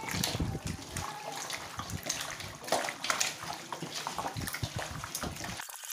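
Hands squishing and turning raw chicken pieces in a wet flour coating in a stainless steel bowl: irregular wet squelches and slaps.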